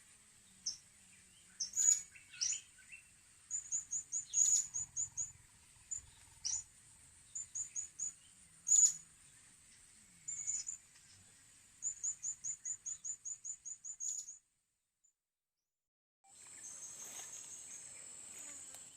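Blue-crowned hanging parrots (serindit) calling: high, thin chirps, often in quick runs of many short notes, over a steady high insect drone. All sound cuts out for about two seconds near three-quarters through, then the drone returns.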